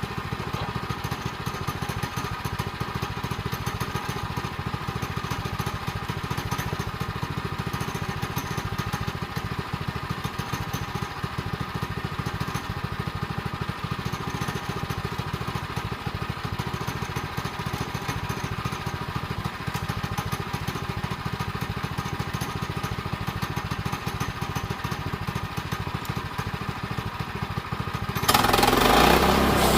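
Sawmill's small engine running steadily; near the end the sound abruptly turns louder.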